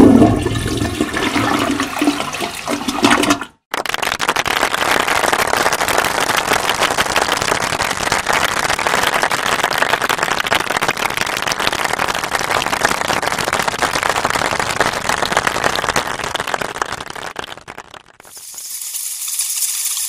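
Stock sound-effect clips played back one after another: a short clip that cuts off about three and a half seconds in, then a long rushing noise with a fast crackle lasting about fourteen seconds, and near the end a high, hissing rattle.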